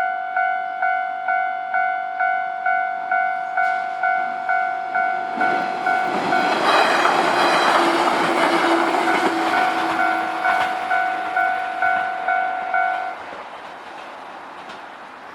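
Japanese level-crossing warning bell ringing at about two and a half strokes a second while a train passes over the crossing, its wheels rumbling and clattering from about six to eleven seconds in. The bell stops about thirteen seconds in, when the crossing clears.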